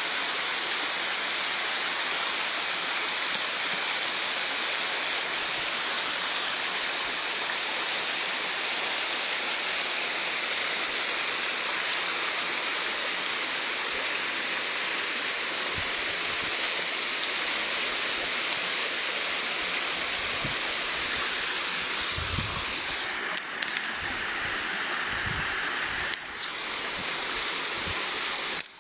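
Steady rushing water with a few soft low thumps in the last several seconds.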